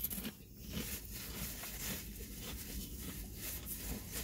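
Potato chip being chewed with the mouth closed: soft, irregular crunching, with one sharp click at the very start.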